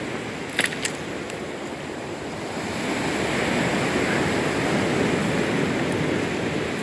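Sea waves washing onto the shore, the surf swelling up about halfway through and easing off again near the end. Two sharp clicks just under a second in.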